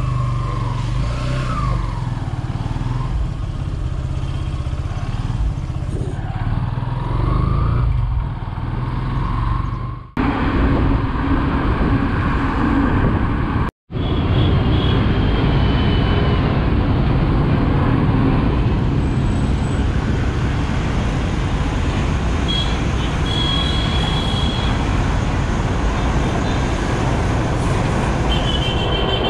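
Motorcycle being ridden on the road: steady engine running under heavy wind and road noise, with surrounding traffic. The footage cuts abruptly twice, about ten and fourteen seconds in.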